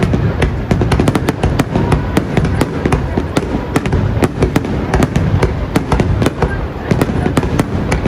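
Fireworks going off in a dense barrage: rapid, overlapping bangs and crackles, several a second, over a continuous rumble.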